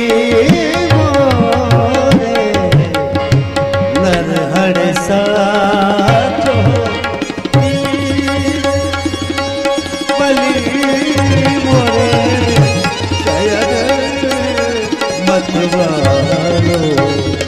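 Qawwali music: a tabla and drum beat under a wavering melody line, over a held drone note.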